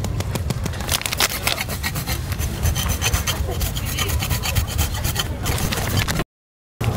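Grated cheese being shaken from a plastic shaker over a pan of cream pasta: a dense run of rattling, scratchy ticks. A low wind rumble on the microphone sits underneath, and the sound cuts out briefly near the end.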